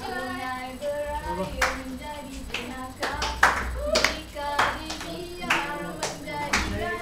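Boria performance: a voice singing Malay verses in held, wavering notes, with hand claps keeping a beat about twice a second from about a second and a half in.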